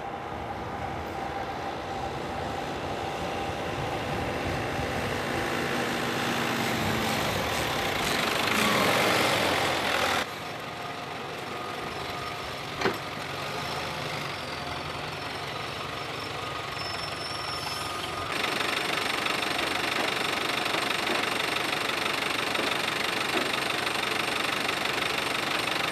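Vineyard tractor's diesel engine running, growing louder until about ten seconds in, then steadier. There is a single sharp knock about halfway through. For the last third the engine noise changes and is a little louder.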